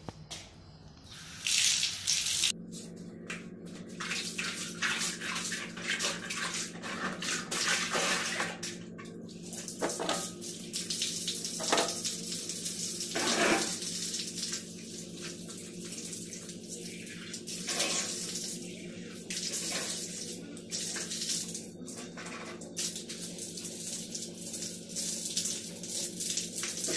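A water tap running into a plastic tub while a person washes their hands and then splashes water on their face, with irregular splashing over the steady flow. The flow comes on about two and a half seconds in.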